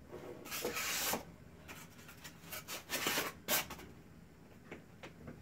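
A cardboard box sleeve sliding off a small product box, with rubbing and scraping of cardboard packaging as it is handled: one longer scrape about half a second in, then several shorter ones around three seconds in.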